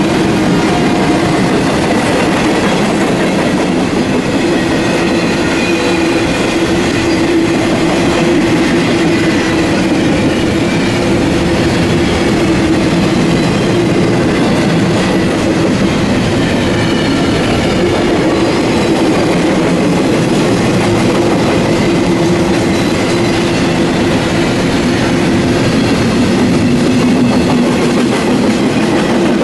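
Loud, steady rumble and rail noise of a long intermodal freight train passing close by at speed: flatcars carrying truck trailers, then double-stack container cars, with clickety-clack over the rails and faint high squeals.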